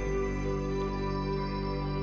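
Background music: slow, sustained chords with long held notes, changing chord as it begins.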